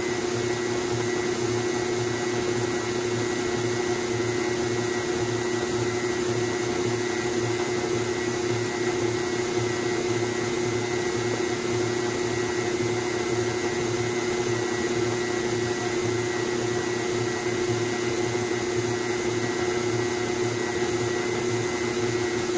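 KitchenAid Artisan stand mixer running steadily at a raised speed, its flat beater mixing cookie dough in the steel bowl: an even motor whine with a constant hum.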